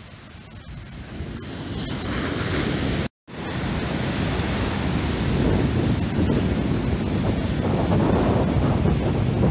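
Rough storm surf breaking on a sand beach, with wind buffeting the microphone in a low rumble. The sound drops out for an instant about three seconds in, and after that the wind rumble is louder.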